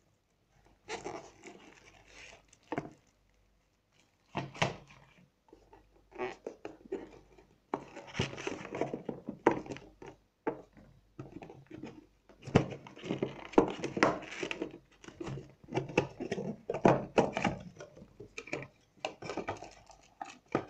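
Hands unpacking a tablet box: plastic wrap and bags rustling and crinkling, with knocks from the cardboard box and its insert. The sound comes in irregular bursts with short pauses and a few sharp knocks.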